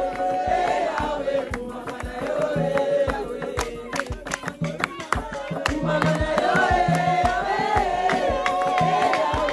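Gospel worship song with a woman singing the melody, hands clapping along, and a steady low beat underneath.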